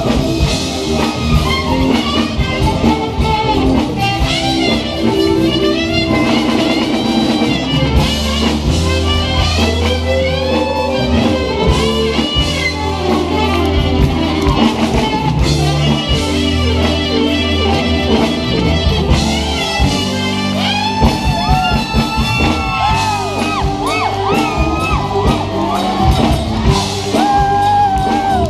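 A live band playing a song, with electric guitar, drum kit and a steady bass line; the melody lines bend and slide in pitch.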